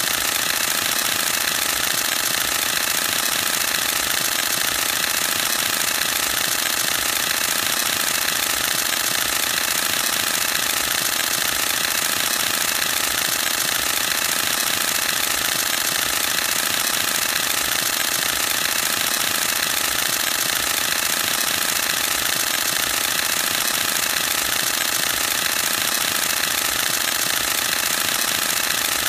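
Canon EOS-1D X Mark II DSLR firing a continuous high-speed burst: its mirror and shutter clatter in a rapid, even, unbroken rattle.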